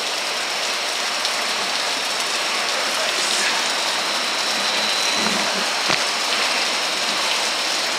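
Water running steadily from a hose end into a floor trench drain, a constant splashing rush. It is flushing the drain so that dumped yeast will not stick in the line.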